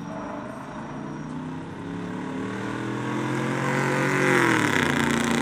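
Two pickup trucks drag racing at full throttle, their engines climbing in pitch and getting louder as they come down the strip, then dropping in pitch as they pass close by about four and a half seconds in.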